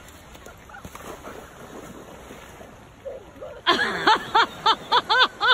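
Waves washing on a beach, a steady low wash. About three and a half seconds in, a rapid run of loud high-pitched squeals starts, about four a second.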